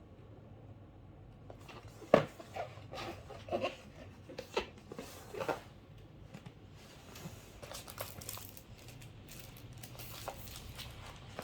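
Keyboard packaging being handled and unwrapped: crinkling and rustling with irregular knocks, the sharpest about two seconds in and a run of smaller ones over the next few seconds, then softer rustles and light clicks.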